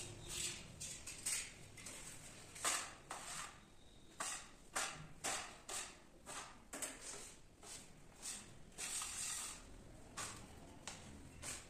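Metal putty knife scraping and mixing wet grout on a floor tile, in short, irregular strokes, about one or two a second.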